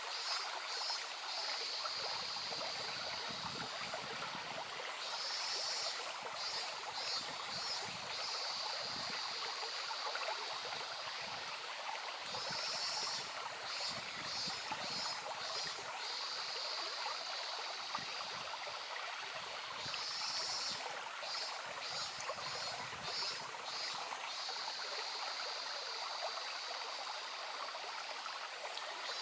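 Shallow stream babbling steadily over stones. A high chirping call, a quick run of short notes, repeats about every seven seconds.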